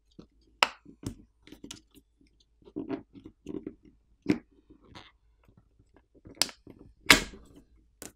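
Plastic pry tool clicking and scraping under a smartphone battery as the battery is pried up off its adhesive, which has been softened with isopropyl alcohol. Irregular crackles and clicks, with a few sharper clicks and a longer scrape about seven seconds in.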